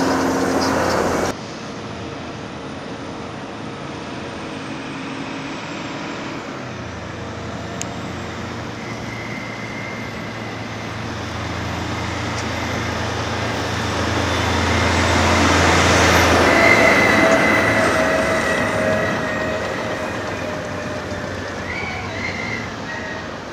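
Diesel engine of a heavy Caterpillar earthmoving machine with a steady low hum. It grows louder to a peak about two-thirds of the way through and then fades, like a machine passing close by. The sound changes abruptly about a second in.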